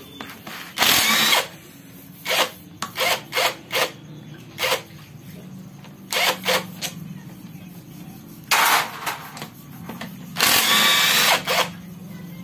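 A power tool pulsed in a string of short bursts, a dozen or so quick runs, with one longer run of about a second near the end.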